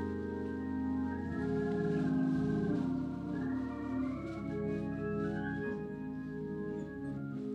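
Organ playing slow, held chords, with the notes changing every second or so.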